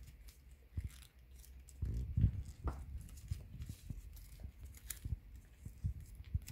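Origami paper rustling and crinkling as it is folded and pressed into a fan shape by hand on a wooden tabletop. A few soft, low thumps come in among the rustles, the loudest about two seconds in.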